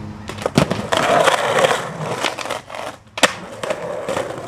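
Skateboard sounds: a few sharp clacks of the board, a stretch of rough crunching noise, then one loud clack a little after three seconds in, followed by wheels rolling on concrete until the sound cuts off abruptly at the end.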